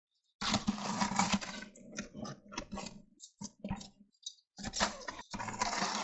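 Wet concrete being worked by hand with a trowel: scraping and sloshing in bursts, with small clicks.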